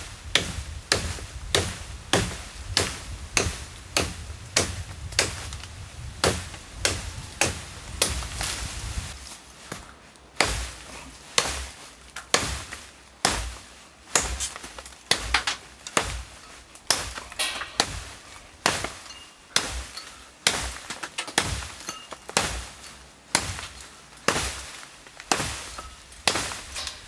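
Hand-forged Kent pattern axe chopping hazel wood one-handed: a long, steady run of sharp chopping blows, a little under two a second.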